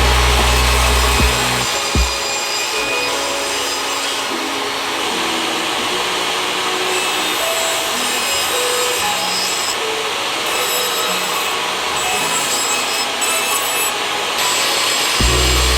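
A tool working wood with a steady, continuous rasp.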